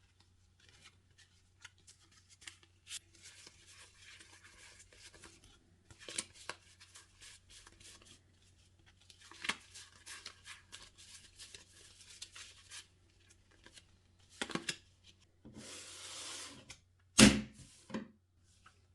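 Packaging being handled and torn open: bursts of crinkling and rustling with many small clicks, a hiss lasting about a second, then a single loud thump near the end.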